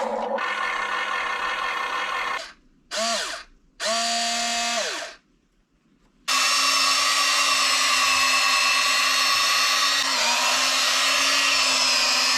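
Electric motors of a Huina 1592 RC excavator whining. Two short whirs spin up and wind down, then after a brief pause a long steady run follows, its pitch dipping slightly near the end.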